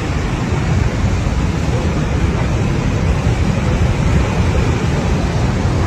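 Floodwater of a swollen river rushing loudly and steadily, a continuous noise heaviest in the low end.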